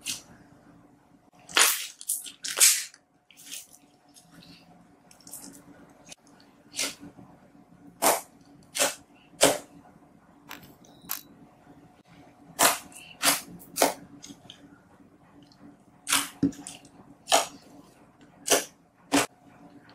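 Blue slime being pressed and kneaded by hand, giving off sharp, irregular pops and clicks as air trapped in it bursts, about eighteen in all, bunched in short runs.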